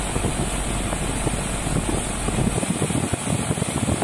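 Outdoor unit of an old Panasonic R22 split air conditioner running, its compressor making a steady rough, snoring noise ("ngorok"), as if working hard. The technician takes it as an early sign of compressor failure, most likely low compressor oil or wear from long use, and the compressor draws more current than its rating.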